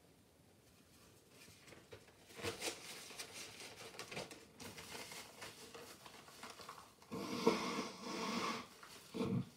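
Paper towel rustling as it is handled, then a person blowing their nose into it: one long blow of over a second starting about seven seconds in, and a shorter blow near the end.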